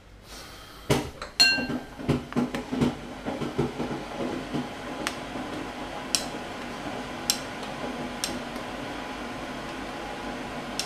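A metal spoon clinks and knocks against a stainless steel pot of boiling dumplings. A quick flurry of strikes comes about a second in, one of them ringing clearly, then occasional single light taps sound over a steady hiss from the pot on the gas burner.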